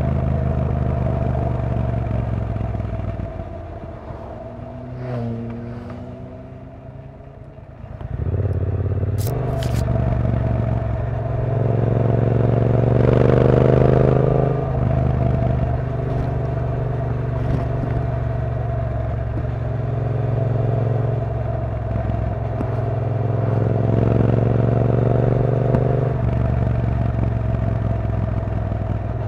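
2016 Triumph T120's 1200 cc parallel-twin engine on the move: the throttle eases off and the engine goes quieter for a few seconds, then it pulls again with the revs rising twice, loudest in the first climb. A brief sharp click comes in just before the engine picks up.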